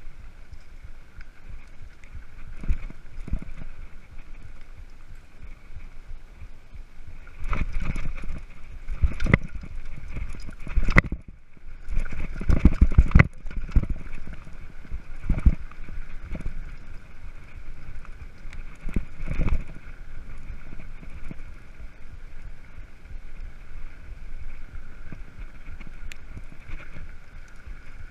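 Mountain bike ridden over a bumpy dirt singletrack: tyres rolling on dirt, with the frame and handlebar rattling and knocking over bumps and roots, heard through a handlebar-mounted camera. A cluster of the loudest knocks comes about twelve to thirteen seconds in.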